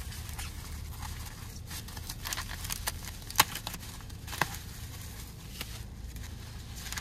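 Bubble wrap being unwound and handled, crinkling and rustling, with scattered sharp crackles; the two loudest snaps come about three and a half and four and a half seconds in.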